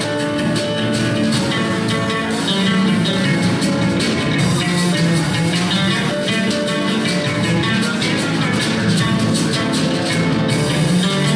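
Live jazz-fusion band playing: a plucked oud over upright double bass and a drum kit with frequent cymbal strokes.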